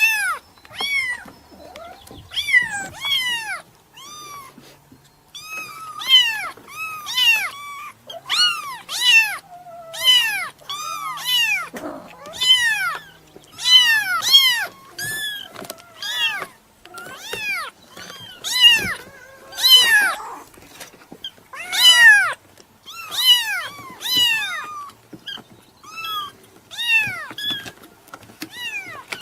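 Very young kitten meowing over and over: short, high-pitched calls that rise and fall in pitch, about one or two a second, often in quick pairs.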